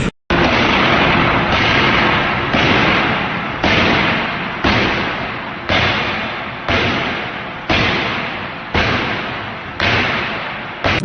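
A machine cycling about once a second: each stroke starts with a sudden hit and fades into noise, about ten times in a row.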